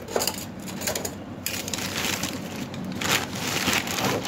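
Plastic courier bag rustling and crinkling as the parcel is handled and opened, in several uneven rustles.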